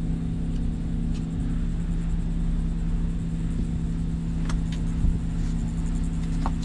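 Mitsubishi Lancer Evolution VIII's 4G63 inline-four engine idling steadily, a low, even rumble.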